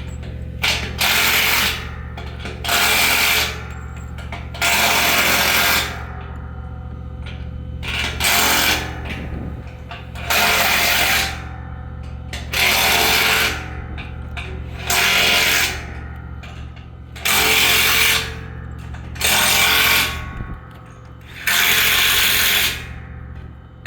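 A power tool runs in repeated one-second bursts, about ten of them, each roughly two seconds apart, over a steady low hum.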